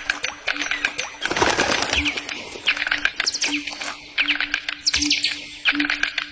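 Birds chirping in quick high bursts over a short, low note that repeats at an even pace. There is a brief rushing noise, like a flutter of wings, about a second and a half in.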